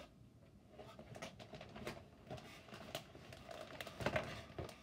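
Faint rustling and light clicks from a package being handled, with a few louder knocks and rustles about four seconds in.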